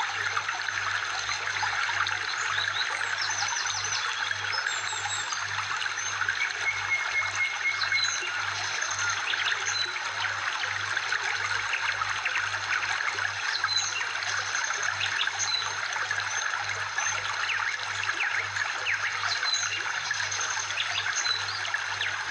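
Steady trickling-water background track, with short high chirps scattered through it.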